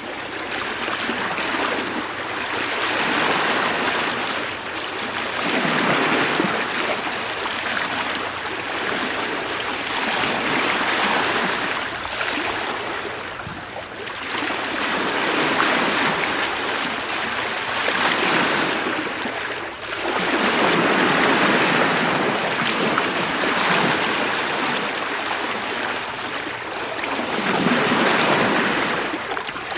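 Bow wave of a sailing ship washing along the stem at about 4 knots, heard from the bowsprit. The wash swells and eases every few seconds as the bow rises and falls.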